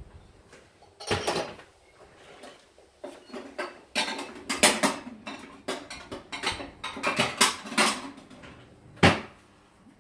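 Kitchen dishes and utensils being handled: an irregular series of clinks, knocks and clatters, the loudest about nine seconds in.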